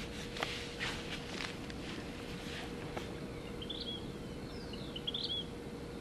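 Vermilion flycatcher singing at night: two short phrases of quick stuttered high notes, one almost four seconds in and another near the end. Rustling crackles come first, over a steady faint hum.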